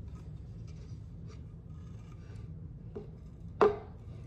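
Hemp rope rubbing and rustling as it is pulled through a drilled hole in a wooden sign, with a faint click about three seconds in and a sharp wooden knock just after.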